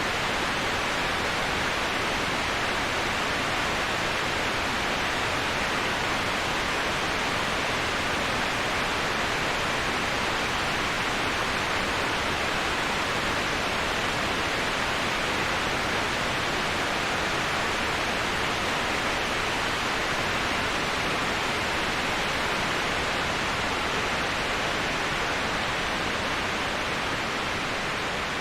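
Waterfall falling steadily: an even, unbroken rush of water noise, strongest in the upper middle, easing off slightly near the end.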